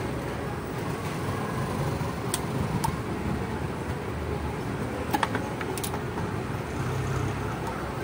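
Steady low background rumble, with four sharp clicks of pliers working the tower fan's wires, in two pairs about half a second apart, around two and five seconds in.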